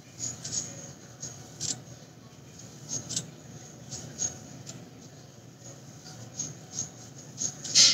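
A comb being dragged through slicked-back hair: short, irregular scratchy strokes, with the loudest one just before the end.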